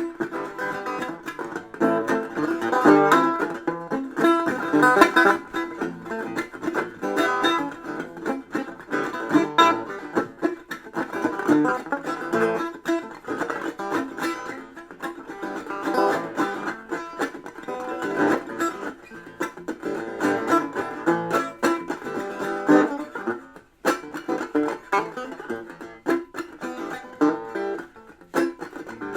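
Plucked string instrument played in a quick run of many notes, with a brief break about three quarters of the way through.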